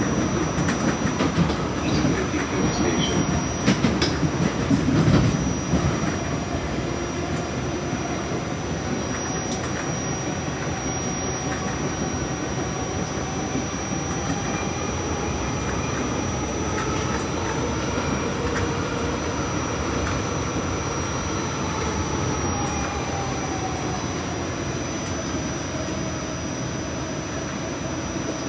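Cleveland RTA Blue Line Breda light-rail car running along the track, heard from inside: a steady rumble of wheels on rail, with a few knocks over rail joints in the first six seconds. About halfway through, a faint whine glides up in pitch and back down.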